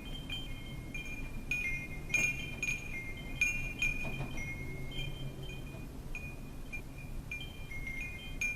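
Wind chimes ringing, struck irregularly by the wind: several clear, high, overlapping tones that ring on, coming thickest a few seconds in, over a low steady rumble.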